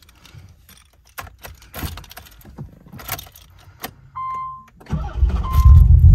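Keys jangle and click at the ignition of a Nissan 300ZX (Z32), and a dash chime beeps briefly. About five seconds in, its naturally aspirated VG30DE 3.0-litre V6 cranks and fires on a cold start, running loud and low, with the chime beeping again.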